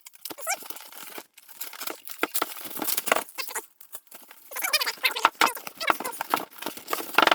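Monitor packaging being handled as the stand is pulled out of its box: irregular rustling, scraping and knocking, with a few short squeaks.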